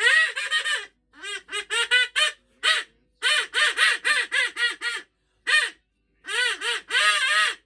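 Duck quacking: quick runs of short, rising-and-falling quacks, several a second, in bursts separated by brief pauses.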